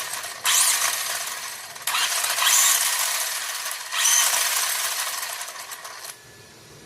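Traxxas Slash 4X4 RC truck's electric motor and drivetrain run up in three throttle bursts, each starting sharply with a high whine and rattle of gears and then winding down. The truck is being test-run after a new spur gear and front differential went in, and it runs without trouble.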